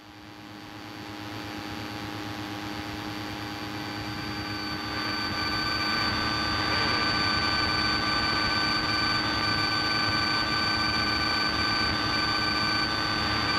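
Piper Cherokee's engine and propeller droning steadily in the cabin in flight, with several constant tones over the noise. It grows louder over the first several seconds, then holds steady.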